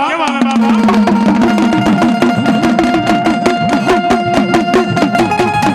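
Folk drumming on small tasseled dakla drums in a fast, even beat, the low drum notes bending up and down in pitch with the strokes, under a held melody note. A sung line ends just as it begins.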